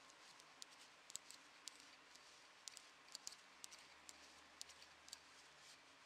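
Faint, irregular light clicks of metal knitting needles tapping together as stitches are knitted, over a quiet hiss.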